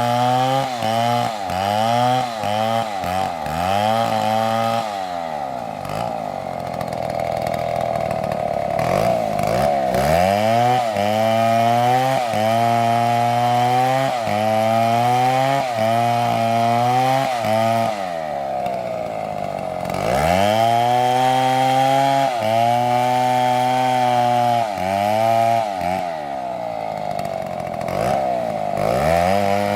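STIHL two-stroke chainsaw running under cutting load in oak logs. The engine pitch keeps rising and falling, with longer dips to a lower speed about five seconds in, near eighteen seconds and again near the end.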